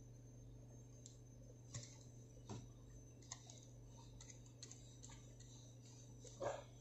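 Faint, irregular clicks and light taps, about ten of them, over a low steady hum: small objects being handled.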